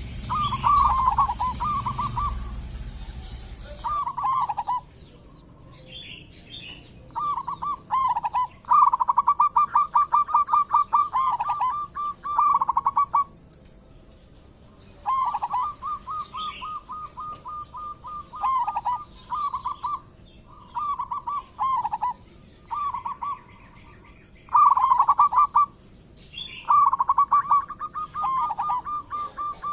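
Zebra doves (perkutut) cooing in repeated phrases of rapid rolling notes with short pauses between them. The longest, loudest phrase comes about nine to thirteen seconds in.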